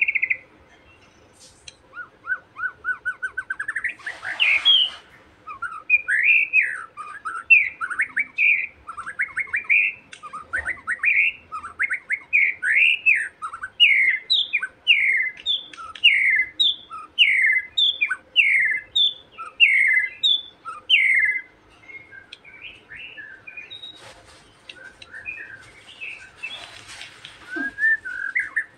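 Young wild white-rumped shama (murai batu) giving its taunting 'ejekan' call, used to provoke a rival bird: a long run of repeated whistled notes slurring downward, about two a second, climbing higher partway through and turning softer near the end.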